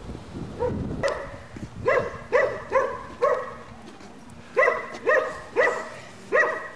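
A dog barking repeatedly, in two runs of about four short barks each. A low rumble fades out in the first second.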